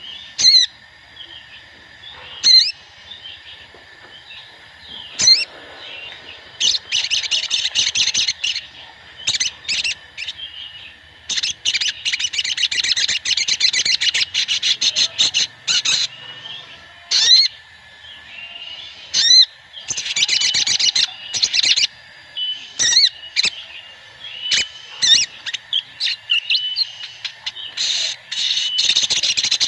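Brown-throated sunbirds (sogon) calling together: sharp high chirps sweeping down in pitch, with several bursts of rapid buzzy trilling a few seconds long. This is a lure recording of a group of sogon, used to get a caged sogon to start singing.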